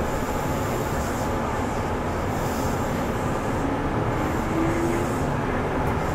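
Kintetsu 2410-series electric train running, heard from motor car Mo 2430: a steady rumble of wheels on rail with a faint, briefly rising whine about four to five seconds in.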